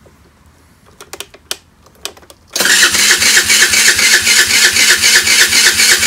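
A few light clicks, then from about two and a half seconds in the Chinese scooter's electric starter cranks the engine with a fast, even pulsing, spinning it without it catching. The owner says it sounds about normal cranking but isn't putting out enough power, which he puts down to the small battery.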